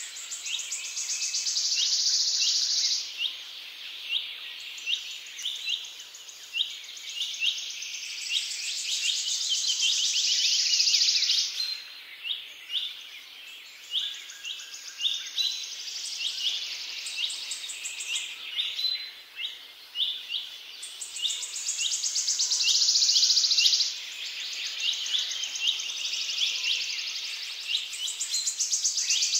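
Insects and birds: a high, harsh buzzing that swells up over a few seconds and cuts off suddenly, again and again, over short chirps repeating a couple of times a second.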